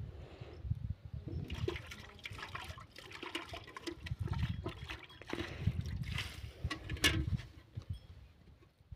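Milk squirting into a steel bucket as a cow is hand-milked, in quick repeated spurts.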